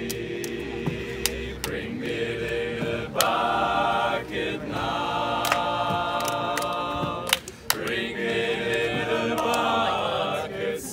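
A group of people singing together unaccompanied, in sustained choral lines with a short break a little past the middle. A few sharp clicks are scattered through it.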